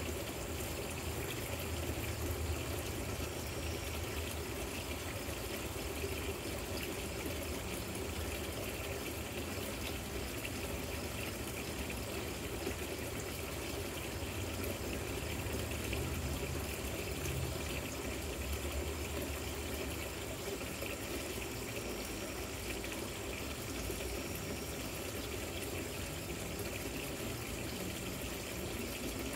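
Water trickling and splashing steadily down a stacked-rock patio fountain.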